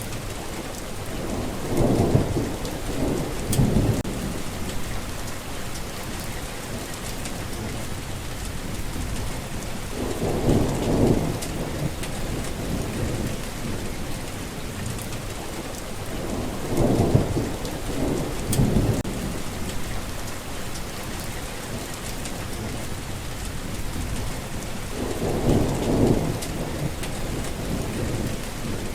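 Steady rain hissing, with low rumbles of thunder swelling up four times, each lasting a second or two.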